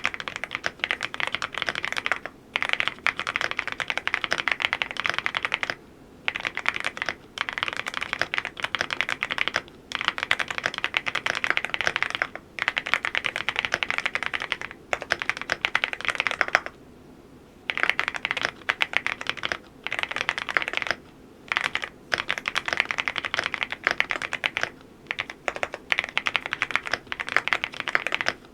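Typing on a Cidoo V87 Pro full-aluminium mechanical keyboard: fast, dense keystrokes in runs of a few seconds, broken by short pauses about every three to four seconds.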